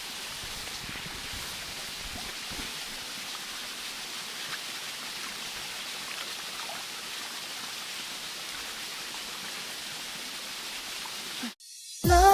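Steady rush of flowing stream water with no change in level. It cuts off suddenly near the end, and music starts.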